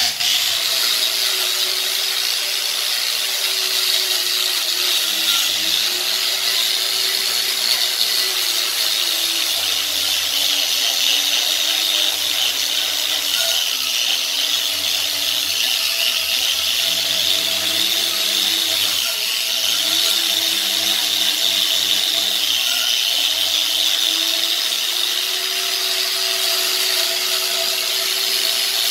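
Electric random orbital sander switched on and sanding the bare metal table of a 1930s drill press, its motor tone dipping several times as it is pressed into the work and rising again as the pressure eases.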